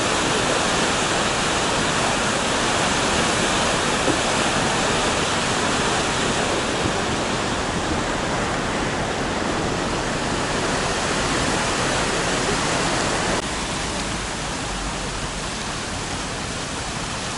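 Steady, even rush of flowing water. About thirteen seconds in it drops abruptly to a slightly quieter rush.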